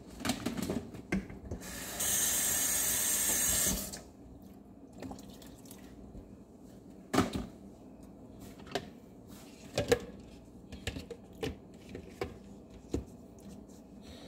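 Kitchen tap running for about two seconds, a steady hiss that shuts off sharply, followed by scattered light clicks and knocks.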